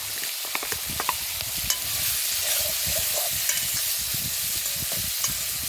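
Chopped vegetables frying in hot curry oil in a pot as they are stirred: a steady sizzling hiss with frequent short clicks and knocks of the spoon and pieces against the pot.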